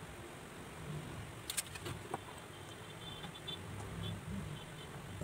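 Sewing needle being pushed through a paper printout into the canvas beneath, giving a few faint sharp ticks over a low steady hum.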